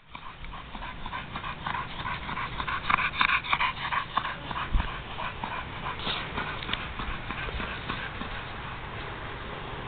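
Pit bull vocalizing excitedly in a quick run of short sounds, busiest and loudest from about two to five seconds in, then easing off.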